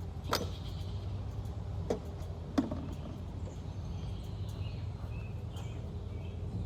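Mini excavator's diesel engine running steadily at idle, with three sharp knocks or clanks spread over the first three seconds.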